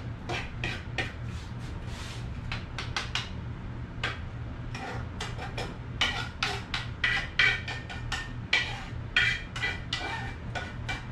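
A metal utensil scraping and tapping risotto out of a stainless steel skillet onto a plate: a run of quick, irregular clicks and scrapes, with sharper, ringing metal taps from about six seconds in.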